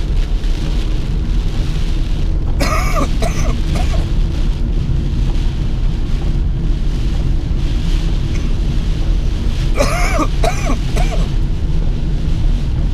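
Steady road and engine rumble inside a car driving through heavy rain, with rain on the windshield and the wipers going. Twice, about three seconds in and again about ten seconds in, a short squeaking sound rises and falls in pitch a few times.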